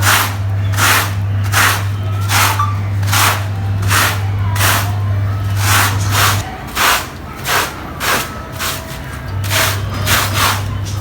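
Rhythmic cleaning strokes across a soaked carpet, about one and a half a second, over the steady hum of a cleaning machine's motor. The hum cuts out about six seconds in and starts again near the end.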